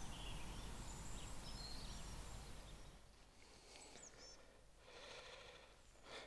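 Faint outdoor ambience: a steady hiss that drops away about three seconds in, with a few short, high chirps of small birds.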